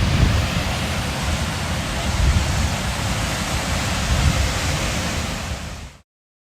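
Ocean surf breaking with strong wind buffeting the microphone in low gusty rumbles; the sound cuts off suddenly near the end.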